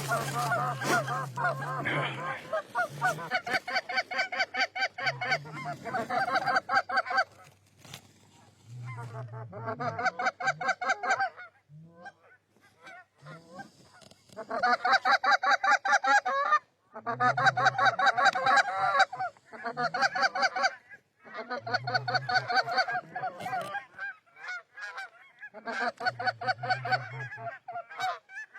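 Fast goose honks and clucks in about ten separate runs, each one to two seconds long, with short pauses between them.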